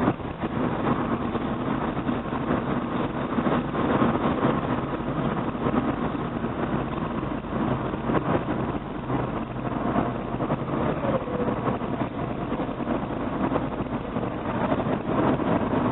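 Car being driven at speed: steady engine hum and road noise as heard from inside the cabin.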